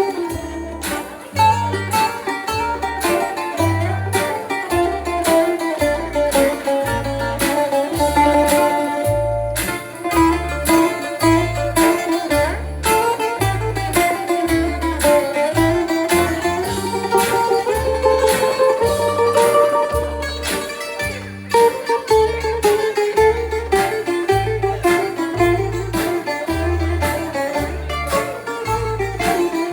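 Bouzouki playing a hasapiko, a Greek dance tune, with a quick plucked melody over a steady low bass beat.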